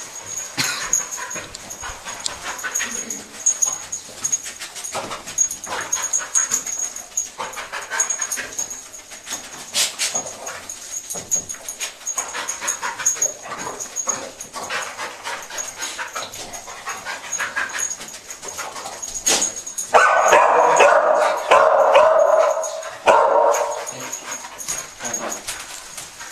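Springer spaniel cadaver dog whining, yipping and barking amid many short clicks and taps. About twenty seconds in comes a louder, unbroken stretch lasting some three seconds.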